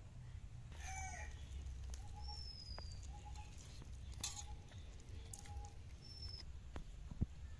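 Chickens clucking in short calls, one fuller call about a second in, with a couple of brief high bird chirps and a few soft clicks over a low steady rumble.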